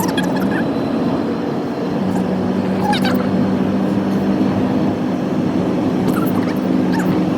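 Steady low hum of a moving vehicle, with short high-pitched squeaks about three seconds and again about six seconds in.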